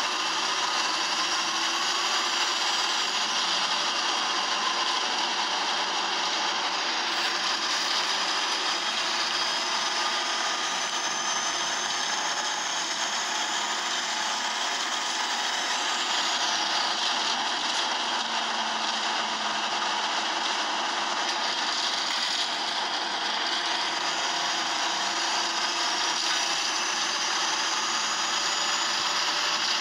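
Steady high-pitched mechanical whirr of a bus's engine and drivetrain, heard from inside the passenger cabin, with a whine that slowly rises and falls in pitch several times.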